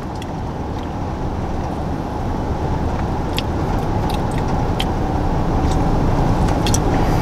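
Steady road and engine noise inside a moving car's cabin, slowly growing louder, with a few small clicks scattered through it.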